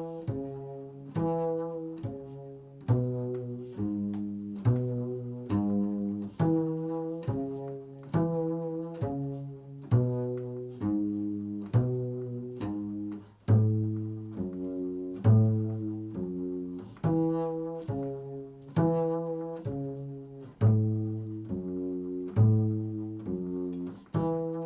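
Improvised solo instrumental music: a slow, even run of low pitched notes, about two a second, each starting sharply and fading away.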